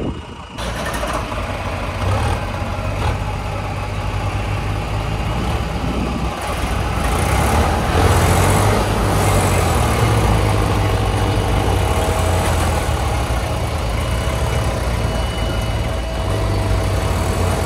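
Heavy diesel engine running, coming in suddenly about half a second in and getting louder around the middle; a thin steady whine joins it about two-thirds of the way through.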